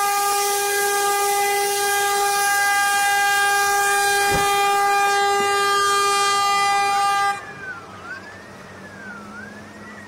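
A ship's horn sounds one long, steady blast over rushing water and wind, then cuts off abruptly about seven seconds in. From about halfway through, a siren wails up and down about once a second and carries on after the horn stops.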